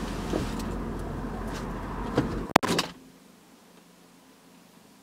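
Someone getting out of a car's driver seat, with rustling and a few light knocks. About two and a half seconds in the car door shuts with a sharp thud.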